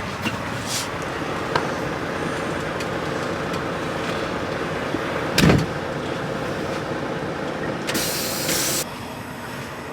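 Semi truck running steadily, with one thump about halfway through and a hiss lasting about a second near the end.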